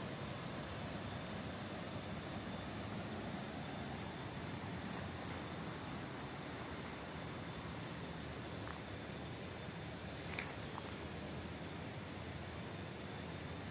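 Insects, crickets or cicadas, droning in a steady high-pitched chorus over soft ambient noise, with a couple of faint short calls about ten seconds in.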